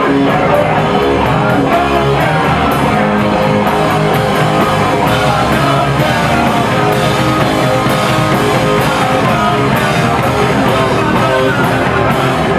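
A rock band playing live and loud: electric guitars, bass and a drum kit with steady, rapid cymbal hits. The drums stop at the very end, leaving the guitars ringing.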